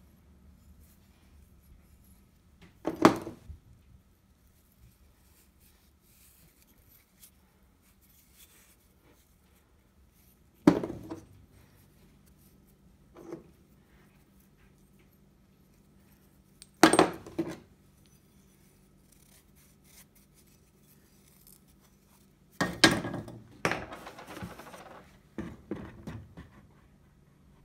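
Rusty metal saw-handle hardware (bolts, nuts and a handle bracket) being handled and set down on a workbench: a few separate sharp clinks and knocks several seconds apart, then a couple of seconds of rattling near the end.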